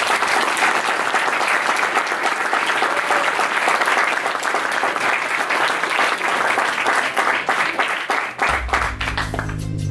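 Audience applauding, many hands clapping together. The applause thins out near the end as background music with a deep bass line comes in.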